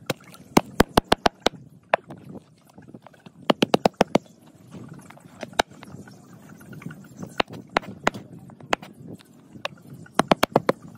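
Meat cleaver chopping a raw plucked duck into pieces on a cutting board: sharp knocks of the blade through the carcass onto the board. They come in quick runs of five or six blows, one about half a second in, one around four seconds and one near the end, with single chops between.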